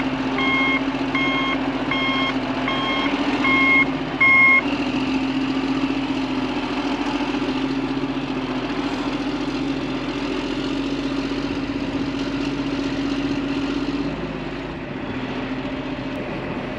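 Case IH Quadtrac tractor pulling a tile plow, its engine running steadily under load. Its reverse alarm beeps about once every three-quarters of a second and stops about four and a half seconds in, and the engine eases a little near the end.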